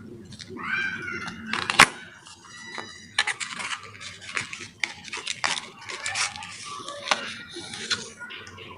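Hands handling a tempered-glass screen protector pack: crinkling packaging with scattered clicks and light taps, and one sharp click about two seconds in.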